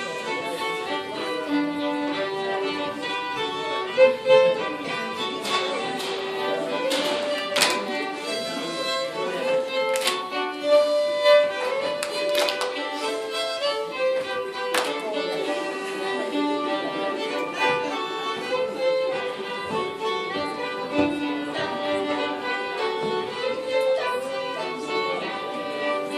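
Fiddle music playing a lively folk-dance tune, with a few short sharp knocks now and then.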